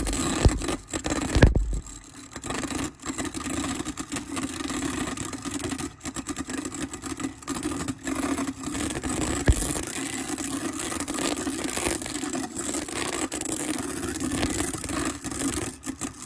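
Magnetic stirrer running with a steady motor hum, spinning water into a vortex, with a few knocks near the start and one about halfway through.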